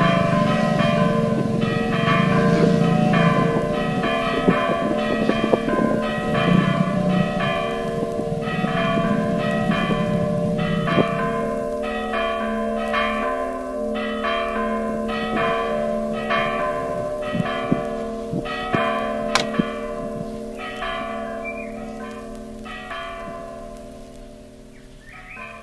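A peal of church bells ringing, struck in a steady repeating run with a long hum under the strikes, fading out toward the end. A low rumble sits beneath the bells for the first half and stops about eleven seconds in.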